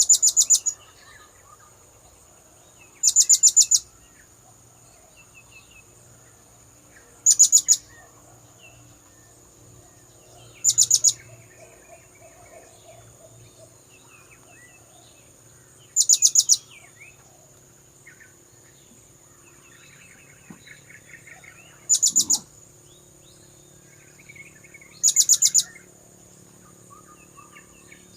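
Blue-crowned hanging parrot (serindit) calls: short, shrill, rapid trills of very high notes, repeated seven times a few seconds apart.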